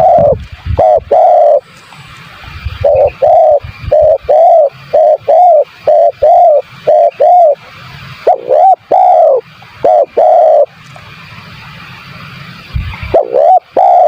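Spotted dove (tekukur) cooing loudly and repeatedly in groups of short arched coos: a quick run of about ten notes, then several longer coos, with a pause of a couple of seconds before the calling resumes near the end.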